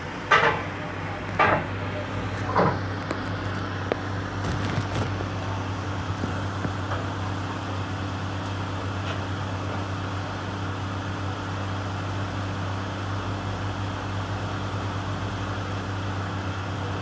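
Heavy diesel engine of a John Deere 624K wheel loader running steadily at low speed, a constant low hum. Three short loud noises stand out in the first three seconds.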